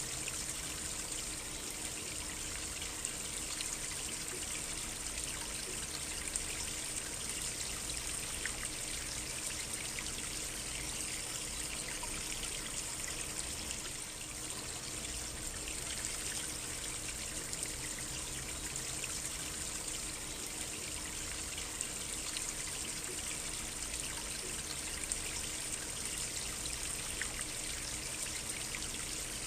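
Stream water trickling steadily, an even rushing with small splashes scattered through it.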